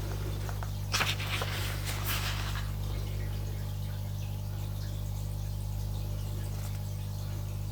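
Steady low hum made of several even tones, with soft brief rustles about one and two seconds in.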